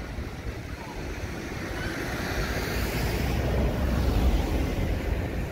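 Wheelchair wheels rumbling over cobblestones and jolting across the water gutter at the foot of a curb ramp, a rough rolling noise that grows louder through the middle and eases near the end.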